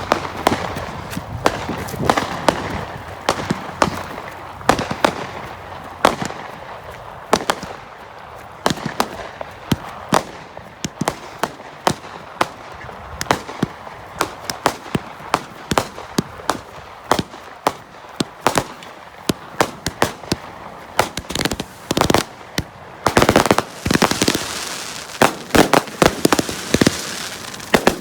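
Consumer fireworks firing in quick succession: many sharp bangs at an irregular pace, several a second at times, growing denser near the end.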